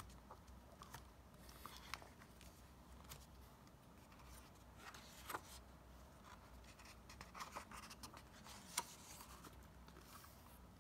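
Hardcover picture book being opened and its pages turned by hand: faint paper rustles and a few soft taps and clicks over near silence.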